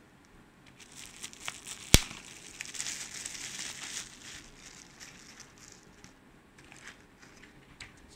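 Plastic bubble wrap crinkling and rustling as a folding knife is lifted out of its box and unwrapped, with one sharp click about two seconds in. Lighter crackles follow near the end.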